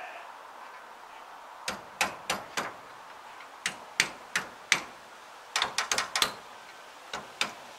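Sharp metal-on-metal taps, about sixteen in irregular clusters, from hammering on the cutter bar of a Fortschritt E303 self-propelled mower while its broken knife is repaired.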